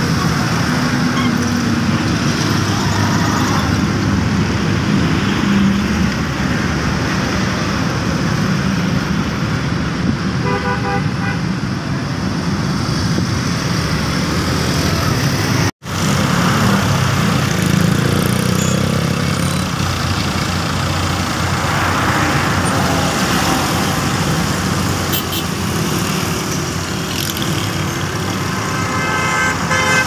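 Road roller's diesel engine running, mixed with the steady rumble of passing street traffic. A vehicle horn toots about ten seconds in and a few more times near the end. The sound cuts out for an instant a little past halfway.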